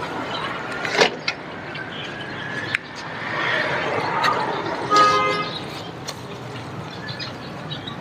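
Steady background traffic noise with a car horn sounding briefly about five seconds in. Two sharp knocks come in the first three seconds.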